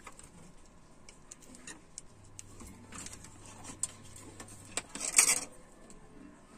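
Light clicks and taps of a power-supply circuit board being handled and turned over on a workbench, with a brief louder scrape about five seconds in.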